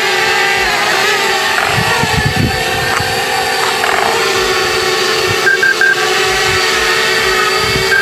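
Parrot Bebop 2 quadcopter's propellers whining steadily as it hovers low. Short triple beeps of the low-battery alarm sound about five and a half seconds in and again at the end, with the battery at 9%.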